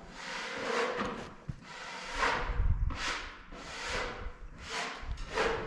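Rhythmic swishing strokes, a little faster than one a second, as of a brush sweeping sawdust off a freshly sawn maple slab.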